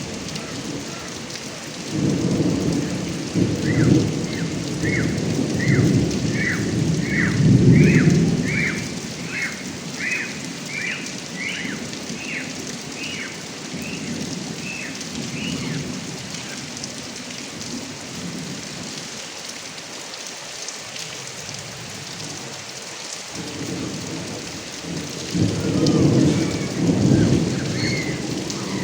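Heavy rain falling steadily, with thunder rumbling early on and again near the end. A short chirping call repeats about twice a second for some ten seconds in the first half.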